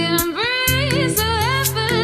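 Background music: a song with a sung, wavering melody over held bass notes and a regular percussive beat.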